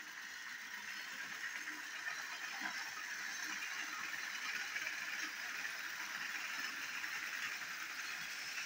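Battery-powered toy train engine's small electric motor whirring steadily as it hauls four trucks and a brake van around plastic track.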